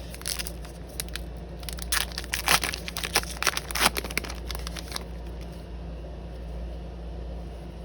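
Trading card pack wrapper being torn open and crinkled by hand, a run of crackling rustles that stops about five seconds in, leaving a low steady hum.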